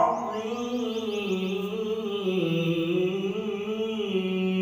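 A man's voice chanting one long, slowly wavering melodic line in Quranic recitation style, drawn out on held notes without breaks.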